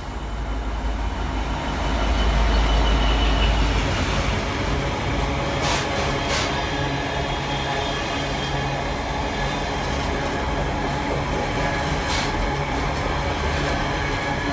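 GBRf Class 66 diesel locomotive passing with the low rumble of its two-stroke V12 engine, loudest about two to four seconds in. It is followed by its train of container flat wagons rolling by, a steady noise of wheels on rail broken by a few sharp clanks.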